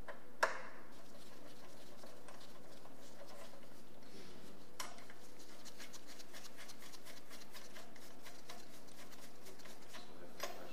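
Light metallic clicks from a hand tool loosening the flange-shaft bearing bracket on a six-speed manual gearbox, over a steady low hum. A single sharp click comes just after the start, and a quick run of faint ticks follows through the second half.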